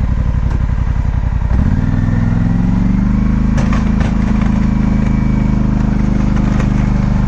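Polaris Sportsman 850 ATV's twin-cylinder engine pulling in low range while the front plow pushes snow. About one and a half seconds in, the note steadies and rises a little. A few sharp clicks come in the middle and near the end.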